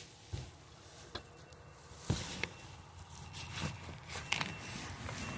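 Hands rummaging through the leaves, sticks and compost in a plastic tote worm bin: soft rustling with a handful of sharp clicks and knocks at irregular times.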